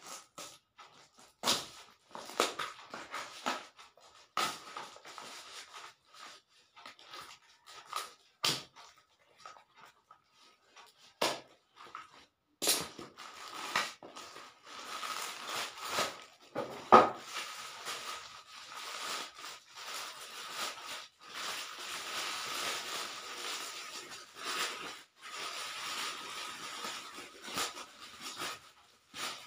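Parcel being unboxed. A blade scrapes and clicks as it cuts packing tape on a cardboard box, then from about halfway cardboard and a plastic wrapper rustle and crackle steadily as they are handled, with one loud knock.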